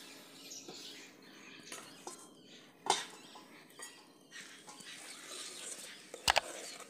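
A brass cooking pot's lid lifted off with a single clink about three seconds in, then a steel ladle clinks twice in quick succession against the pot as the kheer is stirred near the end. Faint birds chirping behind.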